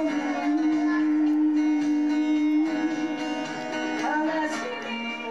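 Live enka performance: a woman singing to guitar accompaniment, with one long held note in the first half before the melody moves on.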